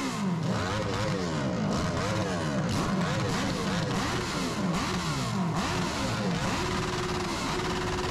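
Several off-road vehicle engines revving up and down in quick, overlapping blips, with one held at a steady speed near the end.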